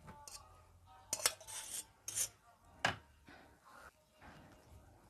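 Noodles being tipped and scraped out of a stainless steel bowl onto a plate: a few short scrapes and clinks of metal on metal, the loudest about a second in and just before three seconds in.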